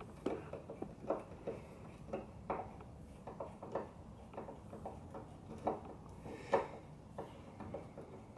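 Hand screwdriver turning out a tail light mounting screw: faint, irregular small clicks and ticks, a few a second, with one slightly louder click about six and a half seconds in.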